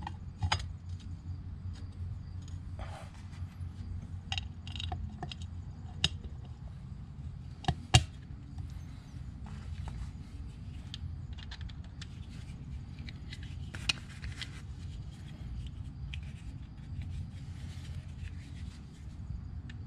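Scattered light metal clicks and taps as a chrome clutch inspection cover and its gasket are handled and held against a Harley-Davidson primary cover, with one sharper click about eight seconds in. A steady low hum runs underneath.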